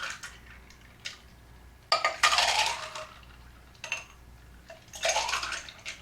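Ice and cocktail mix poured back and forth between two containers, the ice clattering and clinking in two pours, about two seconds in and again near the end, with a few small clinks between.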